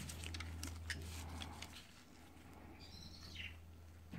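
Faint crinkling and small ticks of gloved hands handling a lithium-ion power-tool battery pack and its tape, busiest in the first couple of seconds, over a low steady hum. A short chirp falling in pitch comes about three seconds in.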